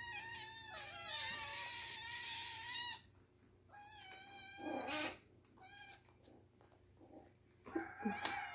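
Kittens mewing in high-pitched cries as they crowd their mother to nurse. Several drawn-out calls overlap for the first three seconds, then shorter mews follow, with a loud one near the end.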